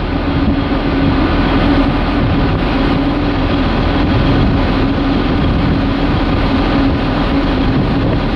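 Lake tour boat under way: its engine runs steadily with a constant hum, over the rush of water churning along the hull.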